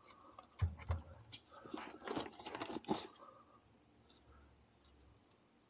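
Faint handling sounds of gear being lifted out of a fabric backpack: rustling and light clicks and knocks, with a couple of soft thumps under a second in, dying away after about three seconds.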